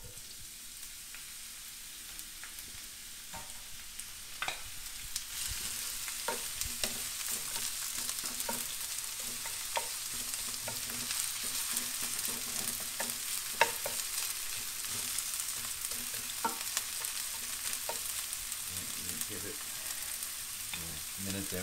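Sliced onions sizzling in hot olive oil in a cast-iron skillet as they are stirred with a wooden spatula, with occasional sharp ticks. The sizzle builds and grows louder about four seconds in.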